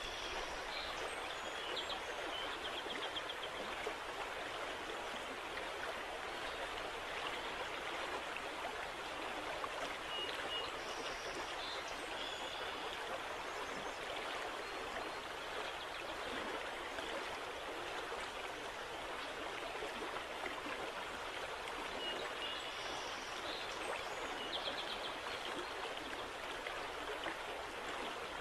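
Steady rush of river water, with faint high chirps a few times.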